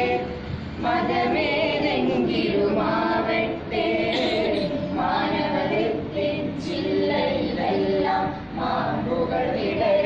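A small group of students singing a Malayalam song together in mixed voices, with no instruments, in phrases separated by short breaths.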